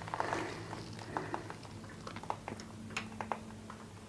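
Faint, scattered small clicks and taps of hands handling a grommet, rag and the jack's small parts, over a low steady hum.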